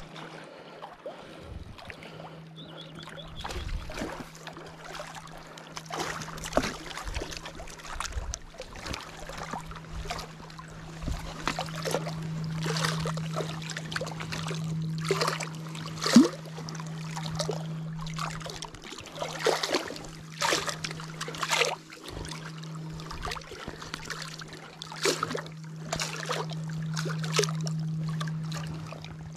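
A boat motor hums steadily, with water splashing and slapping and scattered knocks throughout. One sharper, louder knock comes about halfway through.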